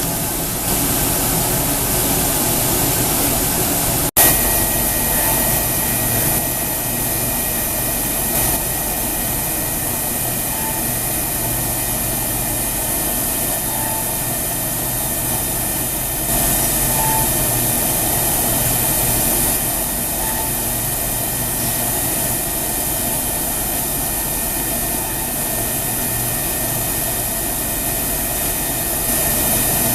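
Komo VR 1005TT CNC router running, a steady machine noise with a high, even whine. It breaks off for an instant about four seconds in and then continues.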